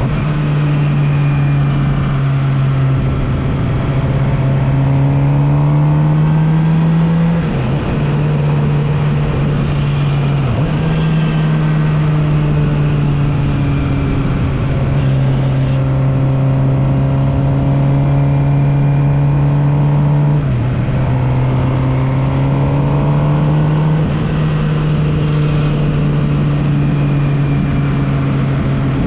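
Suzuki GSX-R750's inline-four engine running at steady, moderate revs on a ride, the pitch slowly climbing and dropping briefly three times as the revs fall, with wind rushing past.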